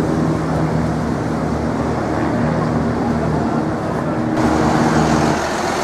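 Road traffic: a vehicle engine running with a steady low hum that stops near the end, over the continuous noise of other passing traffic.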